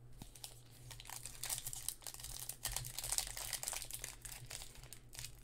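Plastic wrapper of a trading-card cello pack crinkling and tearing as it is pulled open by hand, a faint, quick run of crackles.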